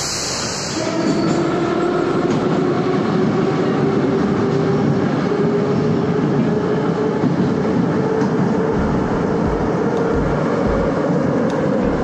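Moscow metro train running through a tunnel, heard from inside the car: a steady loud rumble of wheels on rails with a faint traction-motor whine that drifts slightly upward. The noise swells about a second in, and a few low thumps come near the end.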